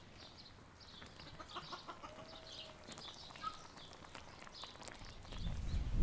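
Small birds chirping over and over in the background, with chickens clucking now and then. A low rumbling noise comes up near the end.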